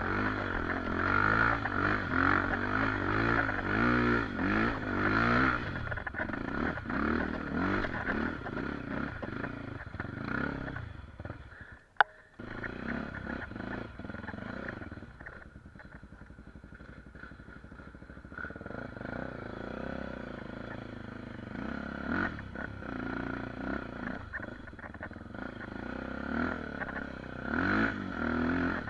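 Honda XR250 Tornado trail bike's single-cylinder engine revving up and down as it is ridden, its pitch rising and falling repeatedly. About twelve seconds in the sound drops away with a sharp click, then the engine runs lower and steadier before revving again near the end.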